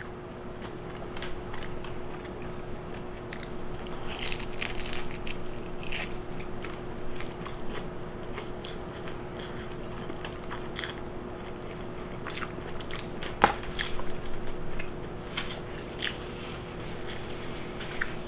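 A person eating fast food: close mouth sounds of biting and chewing, with scattered crunchy bites and a sharp click about thirteen seconds in. A steady low hum runs underneath.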